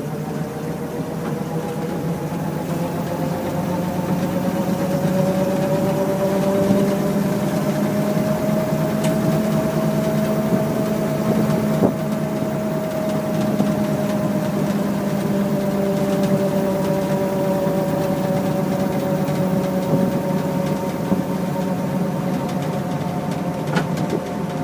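1928 Graham Brothers truck's engine and drivetrain running as it drives along in second gear, heard from inside the cab: a steady low drone with a whine above it that rises gently in pitch and then eases back as the speed changes.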